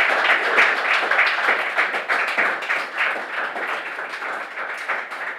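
Audience applauding, the clapping slowly tapering off.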